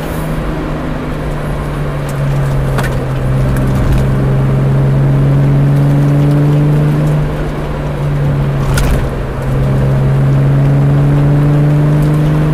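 VW Mk3 GTI's VR6 six-cylinder engine through a Jetex aftermarket exhaust, heard from inside the cabin while driving. It makes a steady low drone at fairly even revs over road noise, swelling louder about two seconds in, easing off around seven seconds, and swelling again near ten seconds.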